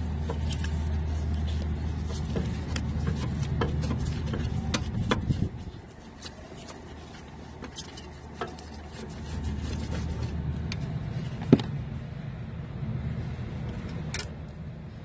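Screwdriver backing out the screw on a run capacitor's metal mounting strap, with small scattered metal clicks and one sharp click about eleven and a half seconds in. Under it runs a low rumbling hum that drops away about five seconds in and returns briefly around ten seconds.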